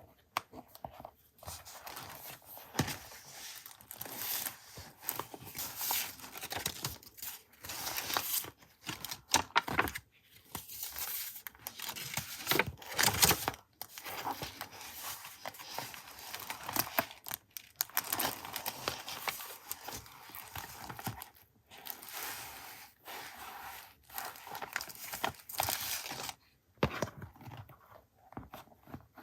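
Paper being handled by hand, rustled, crinkled and torn in short irregular strokes with small clicks and taps between them.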